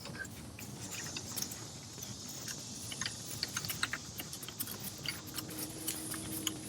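Scattered light metallic clicks and clinks of hand work on the fuel filter's hoses and clamps, over a steady hiss, with a faint steady hum joining near the end.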